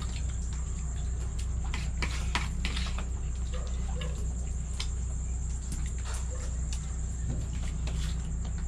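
Spoons and fingers clicking and scraping on plastic plates and bowls during a meal, in many small scattered clicks. Underneath run a steady low hum and a constant high cricket trill.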